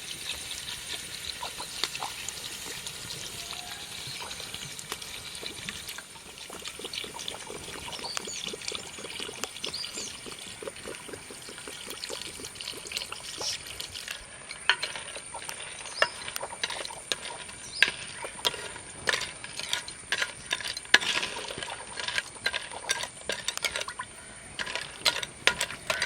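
Water poured into a clay cooking pot of cleaned river crabs, then, about halfway through, a run of sharp clicks and clinks as the crabs and pot are stirred.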